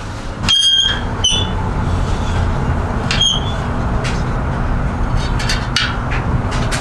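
A few short, sharp metallic pings, three of them in the first few seconds, from the spokes and tools as a dented rear bicycle wheel is trued. A steady low rumble runs underneath.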